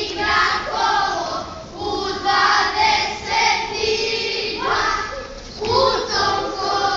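Group of young voices singing a folk song together, with little or no instrument behind them, in long held phrases with short breaks about two seconds in and again just after five seconds.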